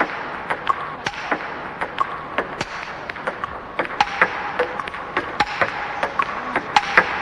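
Table tennis balls clicking off rackets and the table in a quick, irregular stream of several sharp clicks a second. A coach is feeding balls from a basket to a player hitting backhand drives.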